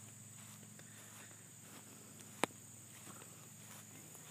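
Faint outdoor background with a steady high-pitched insect drone, like crickets, over a faint low hum. One sharp click about two and a half seconds in.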